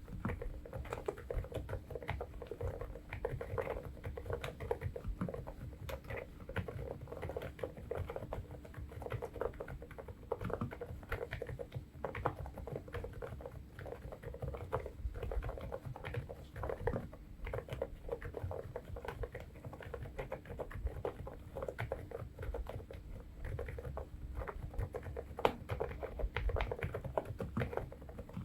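Continuous, quiet typing on the EPOMAKER TH108 full-size keyboard with Sea Salt Silent switches: soft, dull keystrokes in a rapid stream, the damped sound of silent switches.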